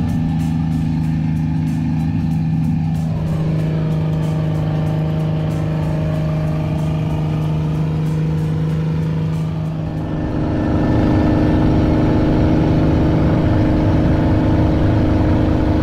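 An engine running steadily. Its pitch drops about three seconds in, and it shifts to a higher, slightly louder tone about ten seconds in.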